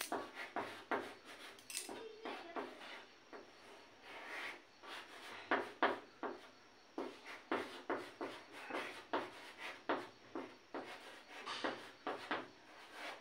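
Chalk writing on a blackboard: short, irregular scratching and tapping strokes, a couple each second, as letters are written out.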